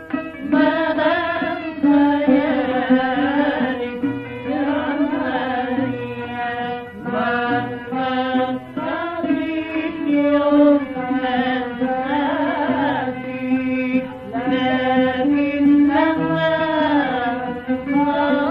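Old Egyptian tarab music in maqam Kurd: a melody with wavering, ornamented pitch runs over a steady low held note.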